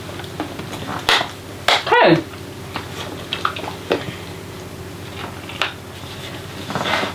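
Scattered light clicks and knocks of a meal being eaten: spoons on metal plates and a plastic sauce bottle being handled.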